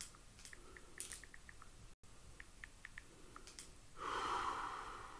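Scattered faint small clicks, then about four seconds in a heavy breath close to the microphone, a noisy exhale lasting about a second and a half.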